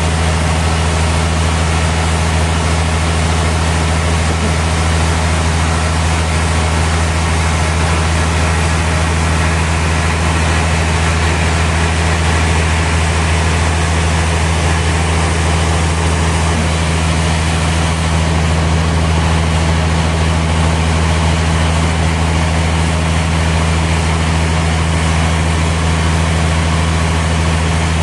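Sawmill machinery running steadily: a loud, even low hum with a hiss over it and no breaks or changes.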